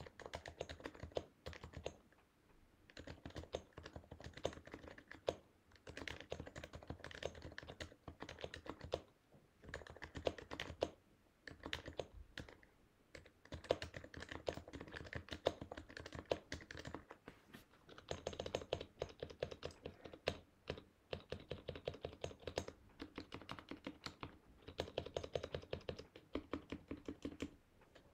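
Typing on a Happy Hacking Keyboard Professional Hybrid Type-S, its silenced 45 g Topre switches giving rapid runs of keystrokes. The runs break off in short pauses every few seconds.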